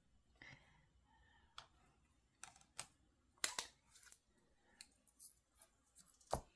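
Irregular small clicks and taps of a diamond-painting drill pen picking up resin drills and pressing them onto the canvas, about a dozen in all, with a louder knock near the end.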